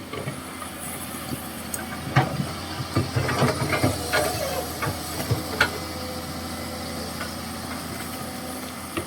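Komatsu PC200-6 excavator at work: its diesel engine running steadily under a hiss, with scattered knocks and clanks through the first six seconds or so.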